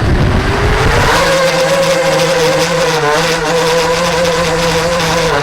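Home-built FPV quadcopter's brushless motors and propellers whining as it throttles up. The pitch climbs over the first second, then holds steady with small wobbles as the drone flies.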